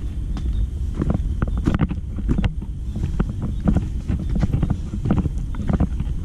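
A hiker's footsteps on a dirt trail littered with dry leaves and twigs, a quick irregular series of scuffs and snaps, over a steady low rumble of wind and movement on the body-worn camera's microphone.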